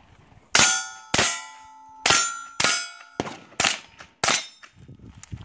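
Rifle shots in quick succession, about six in four seconds, each followed by the clang of a steel plate target being hit and ringing on.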